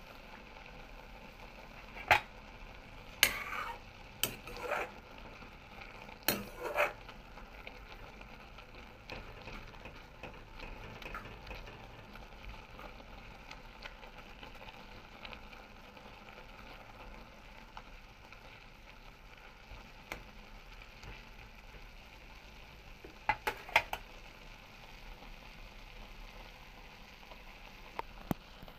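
Sesbania flowers bubbling in a little water in a steel wok, a faint steady sizzle. A metal spatula scrapes and clanks against the wok several times in the first seven seconds and again in a short burst about three-quarters of the way through.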